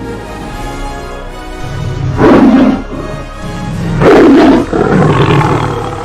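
Three loud roars, the first about two seconds in and the last two close together near the end, over background music.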